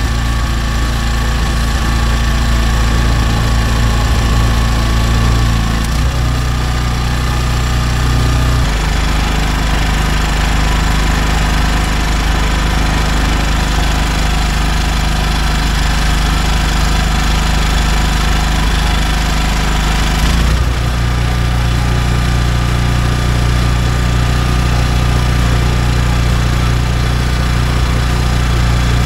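Denyo GE-550 portable generator's small Robin engine running steadily, powering a light bulb. Its engine note shifts a little about six and nine seconds in and again about twenty seconds in. It holds its speed without hunting now that the governor spring is refitted and an air leak is cured.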